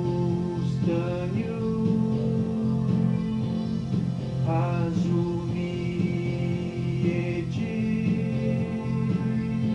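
Electronic keyboard playing a melody of long held notes over a sustained low chord.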